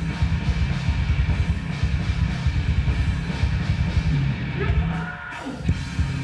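Loud rock music driven by a fast drum kit beat and heavy bass; it thins out briefly about five seconds in, then comes back in.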